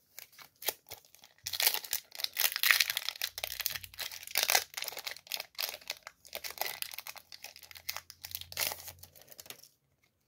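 Foil wrapper of a Yu-Gi-Oh! booster pack crinkling and tearing as it is ripped open by hand, an irregular crackle starting about a second and a half in and stopping shortly before the end.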